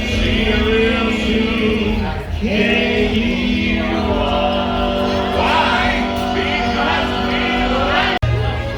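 Music with a choir singing long held notes that change every second or two; it cuts off abruptly near the end.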